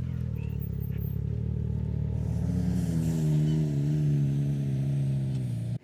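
Side-by-side UTV engine running under throttle, its pitch rising a little about halfway through and then holding steady.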